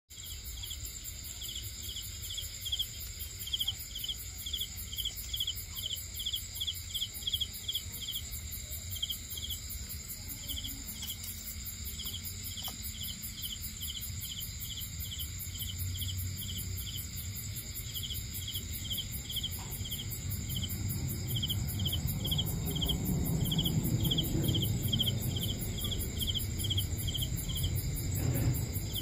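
Crickets chirping, a steady series of short high chirps about three a second, over a continuous higher insect trill. A low rumble grows in the second half.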